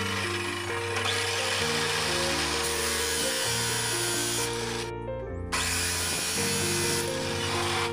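Bolid abrasive chop saw cutting through thin steel rod, a steady grinding that breaks off for about half a second near the middle, over background music.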